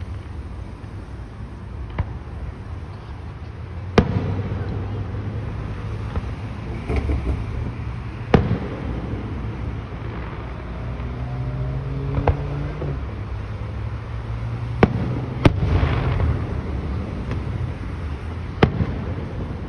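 Fireworks show: aerial shells bursting in sharp bangs every couple of seconds, about seven in all, over a steady low rumble.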